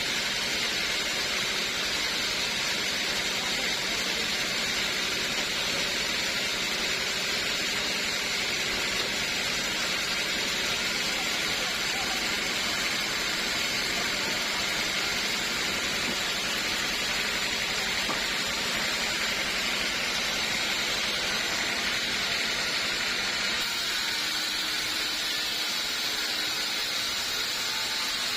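Sawmill saw running steadily through wood, an even, continuous machine noise with no breaks.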